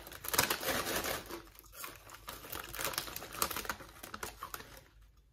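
Plastic Lay's chip bag crinkling as a hand rummages inside it for a chip: rapid, dense crackling that dies away near the end.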